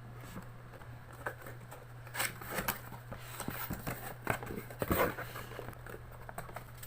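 Cardboard box and packaging being opened by hand: irregular rustling, crinkling and small knocks and scrapes, loudest about two seconds and again about five seconds in, over a steady low hum.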